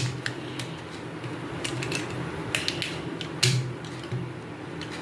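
Magnetic 3x3 speedcube, the Tornado V4, being turned by hand: irregular sharp clicks and clacks as its layers snap into place.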